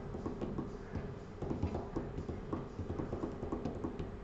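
Light, irregular taps and knocks, several a second, from hands handling and tapping an iPad on a work bench.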